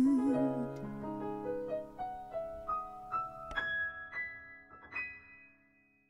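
Piano playing a slow rising line of single notes that ring on and die away near the end, closing the song; the singer's last held note with vibrato trails off in the first second.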